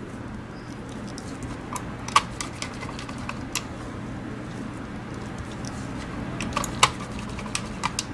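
Scattered small clicks and taps of a precision screwdriver and tiny screws against the plastic base of a Logitech G Pro Wireless mouse as it is screwed back together, over a low steady hum. The sharpest click comes about two seconds in.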